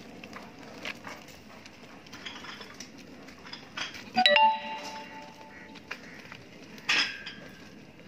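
Two sharp metallic clinks that ring on briefly: a loud one about four seconds in whose several tones die away over more than a second, and a shorter one near the end.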